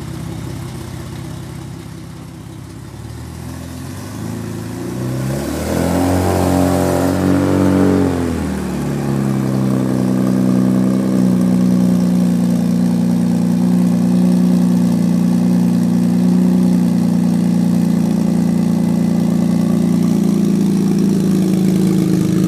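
Jaguar D-Type's high-compression straight-six engine, running through its side exhaust. It starts low and quiet, rises in pitch and falls back about five to eight seconds in as it is revved, then holds a louder, steady note as the car rolls slowly past close by.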